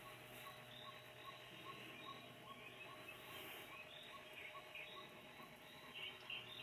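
Near silence: a faint hiss with a faint, regular ticking at about four ticks a second.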